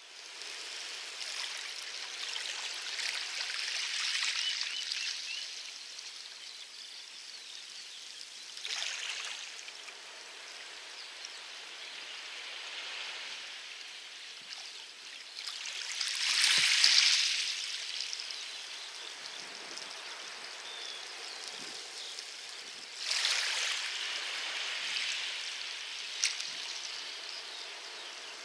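Light waves splashing onto a loose small-pebble beach, a steady hiss of water over stones that swells with each wave, four times, loudest about halfway through.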